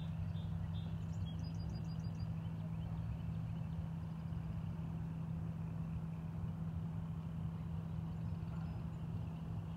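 A steady low mechanical drone, like a distant engine running, holding one pitch throughout. A few short high chirps come about one to two seconds in.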